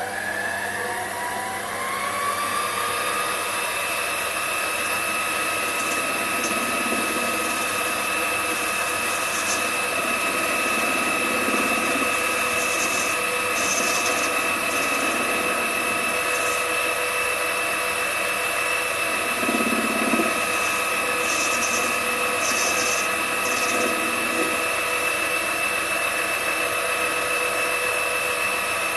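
Sumore 7x12 mini metal lathe running: the motor and drive wind up over the first couple of seconds to a steady whine of several held tones as the spindle reaches speed. Now and then there is a short hissing scrape as the tool cuts the workpiece.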